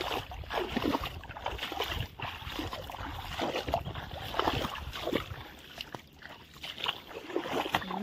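Shallow water sloshing and splashing irregularly as a person wades through it among reeds.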